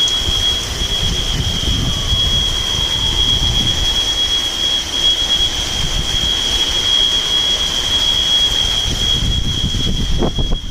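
An apartment-complex alarm sounding one steady, unbroken high-pitched tone. Under it is the low rumble of storm wind buffeting the microphone.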